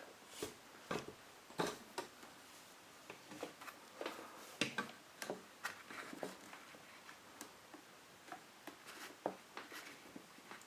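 Faint, irregular clicks and light knocks of the hedge trimmer's plastic cover and housing parts being handled and fitted back together.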